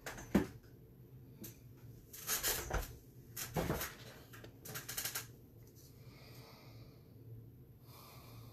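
Hands handling paper and supplies on a tabletop: a sharp tap just after the start, then three short rustling scrapes between about two and five seconds in.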